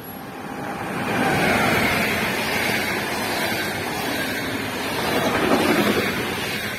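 Express passenger train hauled by an electric locomotive running through a station at speed: the noise of wheels on rails builds to a loud rush about a second in as the coaches pass close by, swells again near the end, then begins to ease off.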